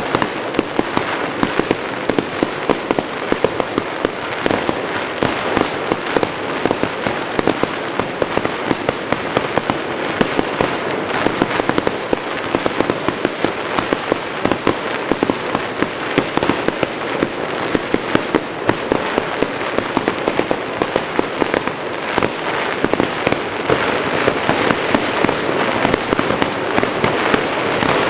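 Fireworks display: a dense, continuous barrage of bangs and crackling, with sharp reports following one another many times a second.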